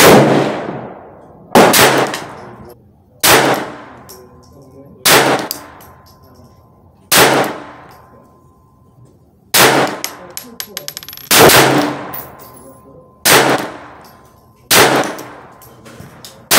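Glock 44 .22 LR semi-automatic pistol firing a slow string of high-velocity rounds, one shot about every one and a half to two and a half seconds with a longer pause near the middle. Each sharp crack is followed by a short echo.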